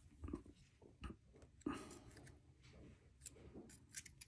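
Faint, scattered clicks and light scrapes of tweezers and small knife parts being handled against a folding knife, with a few sharper ticks near the end.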